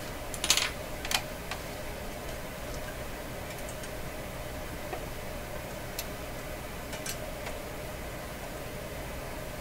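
Small handling noises from an antenna coil turned in the fingers: a brief rustle about half a second in, a sharp click just after, then a few faint scattered ticks over a steady low hum.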